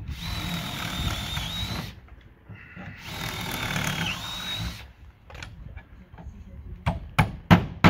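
Cordless drill boring a bolt hole through the boards of a wooden plank door at its strap hinge, in two runs of about two seconds each with a steady high whine. Near the end come a few sharp hammer knocks.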